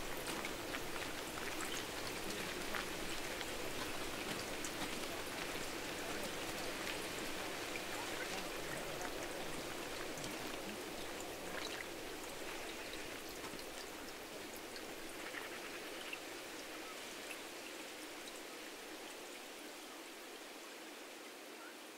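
Running water: a steady watery hiss with scattered small patters, slowly fading.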